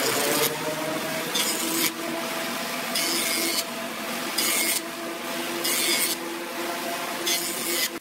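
Jointer running with a steady hum, its cutterhead cutting a board's edge in short passes about every second and a half, each pass a brief high rasping hiss over the hum.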